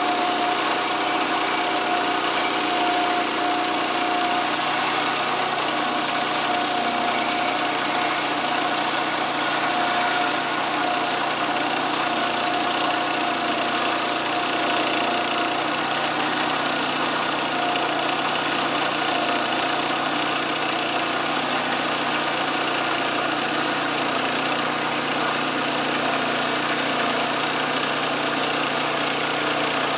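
Small gasoline engine of a homemade band sawmill running steadily at a constant speed, with a steady high whine over it.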